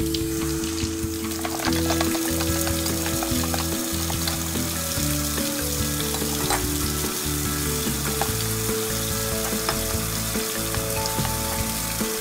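Toy sink faucet running after its button is pressed: a steady hiss of pumped water, over background music with held notes.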